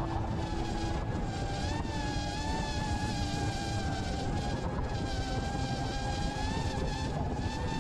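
DJI FPV quadcopter's brushless motors and stock propellers whining steadily in flight, the buzzing pitch wavering gently with throttle and rising briefly about two seconds in, over rushing wind and propeller wash.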